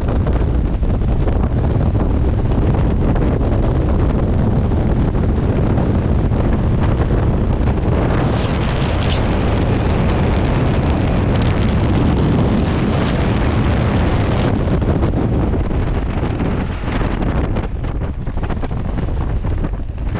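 Freefall airstream rushing over the jumper's microphone: a steady, loud wind buffeting. It eases a little near the end as the parachute opens and the fall slows.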